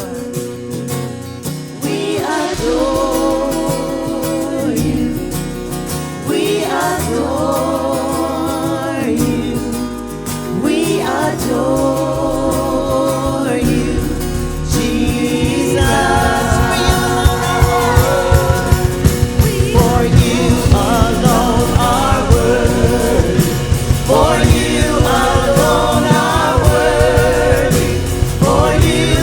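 Live worship music: singers with vibrato over sustained bass and keys, with a steady drum beat coming in about halfway and the music getting louder.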